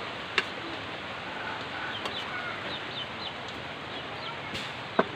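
Chickens clucking and peeping, with short high calls scattered through, over a steady hiss. Two sharp clinks of a metal utensil on a plate, one near the start and a louder one near the end.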